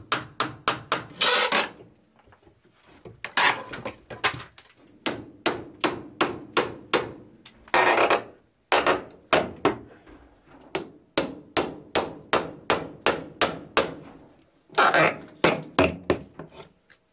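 Steel hammer blows on a pry bar and on old wooden boards as the boards are knocked and pried off the wall framing. Sharp strikes come in quick runs of about four or five a second, broken by short pauses and a few longer, noisier stretches.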